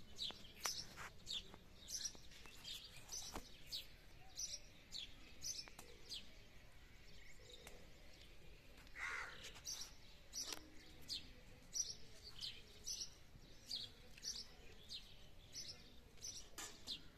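Small birds chirping: short, high, down-sweeping chirps repeated two or three times a second, with a lower, longer call near the middle.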